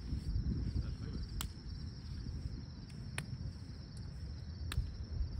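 Insects trilling steadily in a high, pulsing band over a low rumble of wind on the microphone, with three faint sharp clicks spaced through it.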